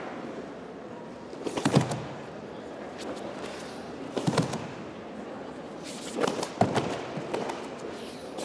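Sharp cracks and thuds of a karateka's kata techniques: the cotton gi snapping on fast strikes and bare feet stamping on the foam tatami. The strikes come about a second and a half in, near four seconds, twice in quick succession between six and seven seconds, and again at the end, over the steady murmur of an arena hall.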